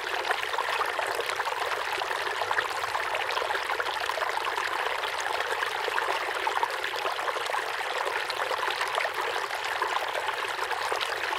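Steady sound of running water, like a flowing stream trickling without a break.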